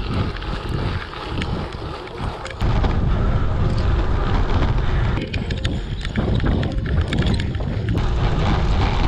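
Wind buffeting the microphone with a loud, gusty rumble and scattered clicks and rattles, as from a mountain bike ridden fast on a rough track. The rumble gets louder about two and a half seconds in.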